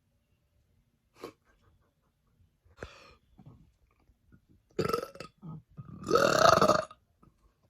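A woman burping several times in separate bursts. The last is the loudest and longest, a pitched burp of about a second near the end.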